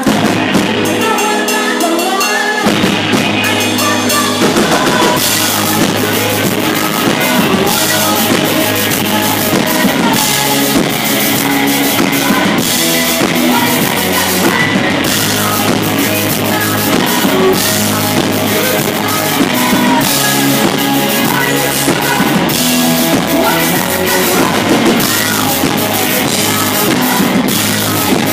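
Live rock band playing loud, close to the stage, with drum kit and bass under a woman singing into a microphone. The bass comes in about two and a half seconds in, and the drums and cymbals fill out the sound from about five seconds on.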